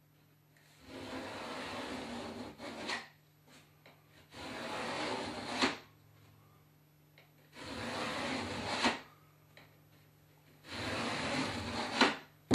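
Notched steel trowel scraping latex thinset across a cement backer board in four long strokes, each about two seconds and ending with a sharper scrape.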